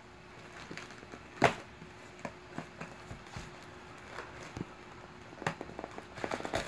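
Plastic packaging being handled: scattered small clicks and crinkles, with one sharp click about a second and a half in and a busier run of them near the end. A faint steady hum sits underneath.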